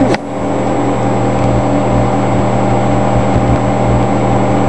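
Microwave oven running, a steady hum, partway through heating a chunk of soap.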